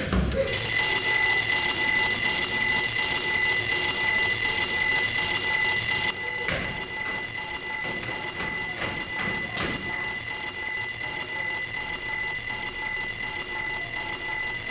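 An alarm ringing with a steady high-pitched tone. It is loud for about six seconds, then suddenly drops to a quieter level and keeps ringing, with a few faint knocks.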